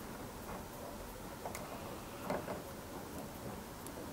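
Faint small ticks and handling noise as the live wire is worked into the LED batten's plastic push-in terminal.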